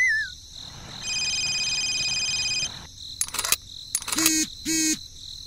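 Electronic sound effects: a steady chord of pure tones held for about a second and a half, then a few sharp clicks and short squeaky chirps.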